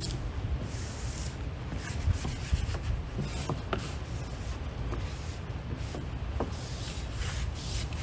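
Hand squeegee rubbing over the paper transfer mask of a vinyl decal on window glass, in repeated short scraping strokes that come quicker near the end.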